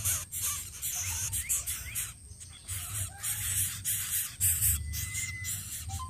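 Greater coucal nestlings giving harsh, hissing rasps in short bursts, about three a second, over a low rumble.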